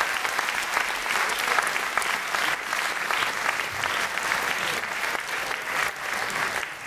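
Audience applauding in a theatre hall after a live klezmer ensemble finishes a piece: dense, even clapping that thins out near the end.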